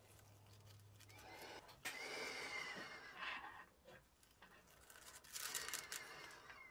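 Faint rustling and scraping from gloved hands working over tissue paper on the bench, in two short stretches: about two seconds in and again about five and a half seconds in.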